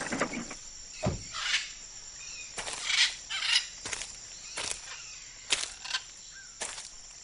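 Woodland ambience with a steady high insect trill, broken by about nine irregular crunching rustles of footsteps through dry leaves and undergrowth, one with a dull thump about a second in.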